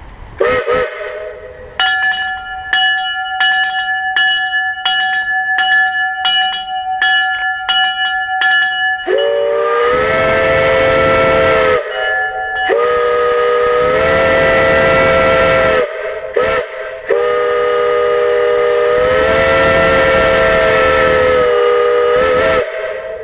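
Steam locomotive (a 1915 Baldwin) sounding its chime steam whistle: a short toot, then a bell ringing in steady strokes for several seconds, then long whistle blasts of several tones together, broken by brief gaps.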